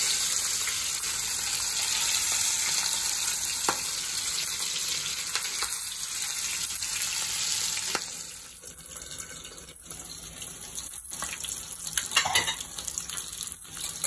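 Rohu fish steaks shallow-frying in hot mustard oil in a kadai, with a loud, steady sizzle. About eight seconds in it drops to a quieter sizzle with scattered pops and crackles.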